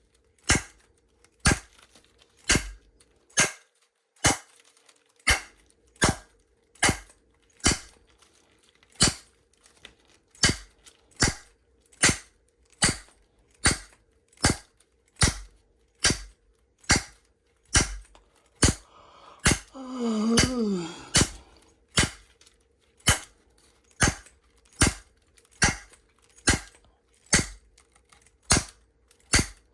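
A block of wood striking a McNally Disecu steel padlock over and over in a steady rhythm, about one blow a second, in an attempt to shock the lock open. About two-thirds of the way through, a brief pitched sound falls in pitch between blows.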